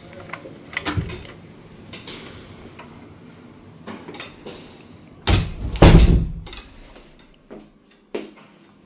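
Hotel room door being closed: a few light clicks from the key card and handle, then two loud heavy thuds as the door shuts about five to six seconds in, followed by two lighter clicks.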